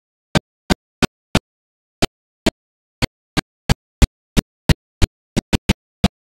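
Dead silence broken by short, sharp clicks, about seventeen of them at uneven spacing, roughly three a second and coming closer together near the end. The total silence between them points to dropouts in the audio track rather than any sound from the ride.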